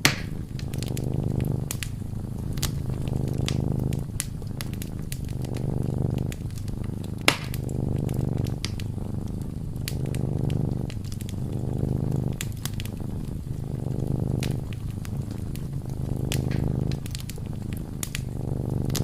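Wood fire crackling in a fireplace, with scattered sharp pops and one louder pop about seven seconds in. Under it runs a cat's low purr, swelling and fading about every two seconds with its breathing.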